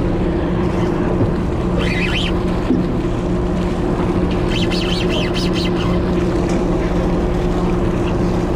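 A fishing party boat's engine running steadily, a constant low drone. A few brief high chirps come about two seconds in and again around the middle.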